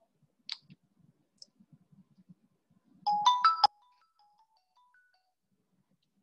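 A short electronic jingle of a few quick stepped tones about three seconds in, lasting under a second, followed by faint trailing notes. A soft click about half a second in.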